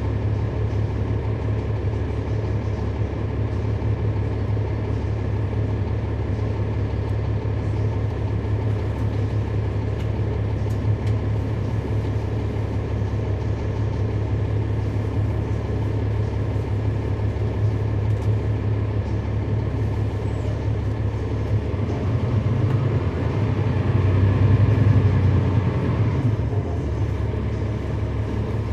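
Inside a 2011 NABI 416.15 transit bus on the move: its Cummins ISL9 diesel engine runs with a steady low drone. The drone grows louder for a few seconds near the end.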